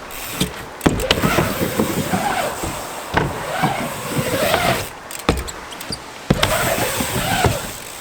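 Strong wind buffeting the microphone, a loud rushing roar with a wavering howl that rises and falls, broken by a few sharp knocks.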